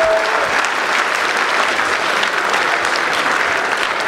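Large crowd applauding steadily, dense clapping with no break.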